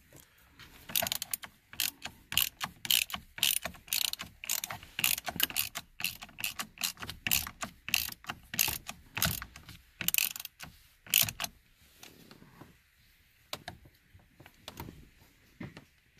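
Hand ratchet with a socket clicking in quick back-and-forth strokes, tightening the steering wheel's retaining bolt onto the column. The dense clicking stops about three quarters of the way through, leaving only a few scattered clicks near the end.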